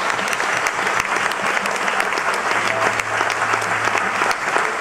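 Crowd applauding, dense steady clapping, with a low steady hum coming in about halfway through.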